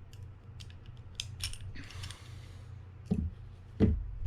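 Small metal parts of a Fin-Nor Offshore 4500 spinning reel clicking and clinking as the bail wire is worked off. There are several light sharp clicks, a brief scrape about two seconds in, and two duller knocks near the end.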